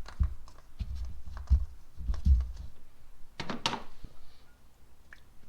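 Handling noises from opening a plastic motor-oil jug to top up the engine oil: a string of light clicks and dull thumps, with a sharper crackling clatter about three and a half seconds in, then only faint ticks.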